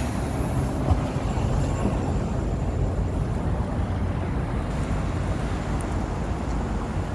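Street traffic noise: a steady low rumble of cars and vans moving past, with a brief knock about a second in.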